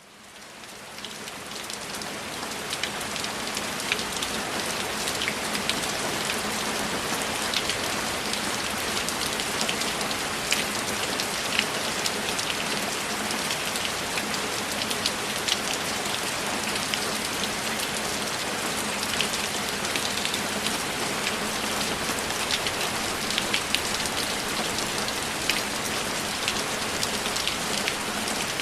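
Steady rain falling on a window, an even hiss with many separate drops ticking sharply against the glass. It fades in over the first couple of seconds, then holds steady.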